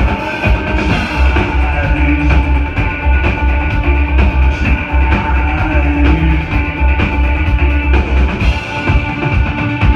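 Electro-industrial band playing live through a club PA: a loud, steady kick-drum beat under a heavy bass line and sustained synthesizer tones.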